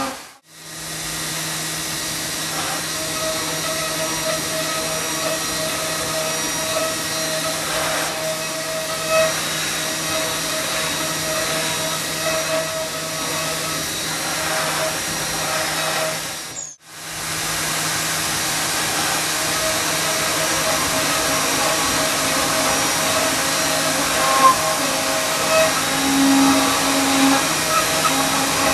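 Milling machine cutting metal with a 12 mm four-flute Protostar Flash end mill at high feed: a steady spindle and cutting noise with a few faint held tones. It breaks off for an instant twice, about half a second in and again a little over halfway through.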